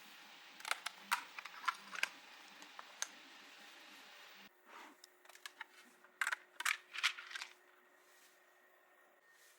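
Light clicks and taps of small hard plastic parts being handled and fitted together, in irregular clusters, with a short pause and a quieter background from about halfway through.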